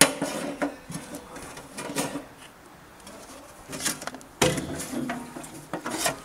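A Trabant's steel fuel tank being pulled up and lifted out of the car: irregular knocks and scrapes as it is worked free, with a sharp knock at the start and another about four and a half seconds in.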